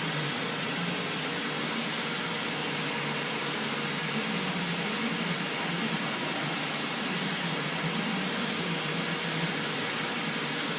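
CO2 laser cutting machine running during a cut: a steady airy drone of its extraction fan and air supply, with a faint steady hum.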